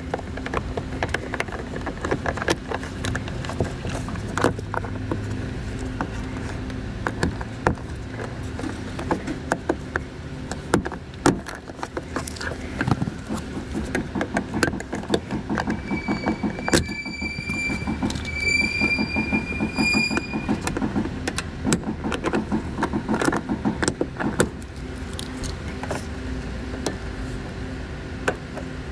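Plastic interior trim and clips around the headliner of a 2016 Toyota Camry being pried loose with a plastic trim tool: a busy run of sharp clicks, taps and rattles, with two long high squeaks about two-thirds of the way through.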